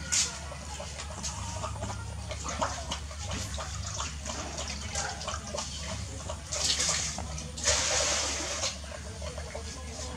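Dogs eating from bowls: a rapid run of wet chewing and slurping clicks, with two longer, louder slurps about six and a half and eight seconds in, over a steady low hum.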